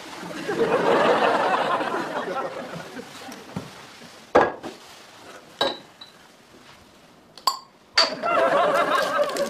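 Glass beer bottles being set down one after another: four sharp clinks with a short glassy ring. Studio audience laughter fills the first few seconds and starts again near the end.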